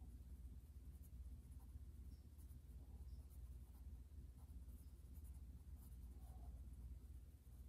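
Charcoal pencil scratching faintly on paper in quick, irregular scribbling strokes, over a low steady hum.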